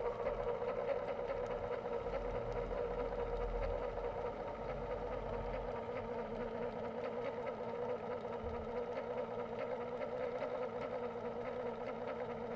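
Electric oil-extractor pump, powered from the car battery, running with a steady hum as it sucks engine oil up through the dipstick tube.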